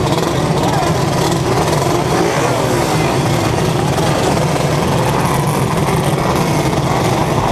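A vehicle engine running loud and continuously, its pitch wavering up and down.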